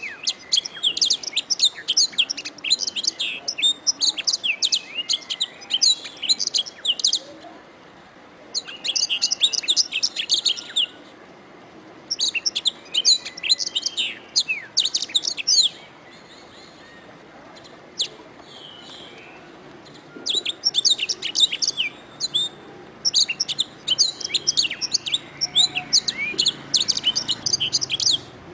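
Domestic canary singing long runs of fast, high, rolling notes. The song breaks off a few times, with the longest pause a little past the middle holding only a few faint notes, then resumes.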